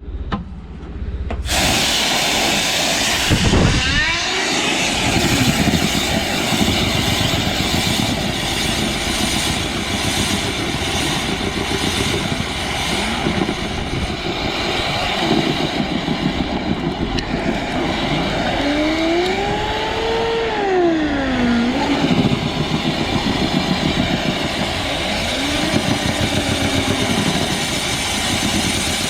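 Motorised dryer-vent cleaning equipment running: a loud steady rush of air with a motor whine that rises and falls in pitch a few times as its speed changes.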